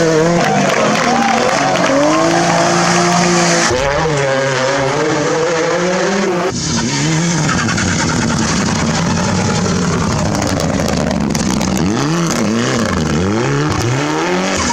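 Rally car engines revving hard, the pitch climbing and dropping again and again through gear changes and lifts, with the sound changing abruptly about 4 and 6½ seconds in as one car's run gives way to the next.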